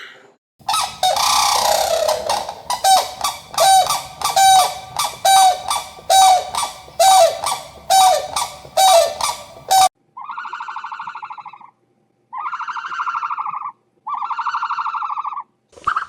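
Animal calls: a rapid run of short calls, about two a second, each dropping in pitch. About ten seconds in, they give way to three long buzzing calls of about a second and a half each.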